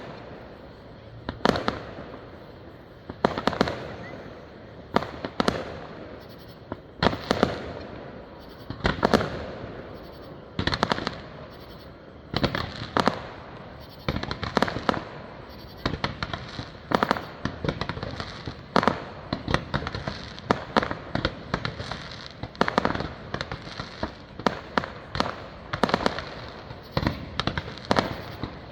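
Fireworks display: aerial shells bursting with sharp bangs that echo. At first a bang comes every second or two, then from about halfway through they come faster and in clusters.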